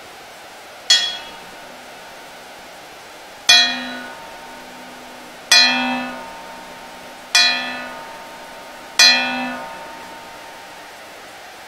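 Five bell-like metallic strikes at uneven intervals, each starting sharply and ringing out with bright overtones that fade over about a second, over a steady background hiss. The first strike is the quietest, and the last four carry a low hum beneath them.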